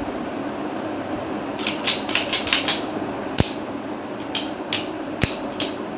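Metal clicks and clacks from a .30 bore pistol being handled as it is put back together: a quick run of about six clicks, a sharper knock, then a few more spaced clicks, over a steady background hum.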